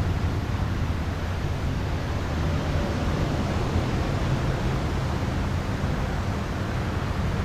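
Wind buffeting the camera microphone: a steady low rumble with a fainter hiss above it and no distinct events.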